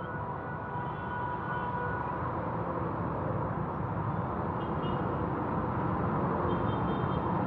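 Street traffic: vehicle engines running as a steady low rumble that grows gradually louder.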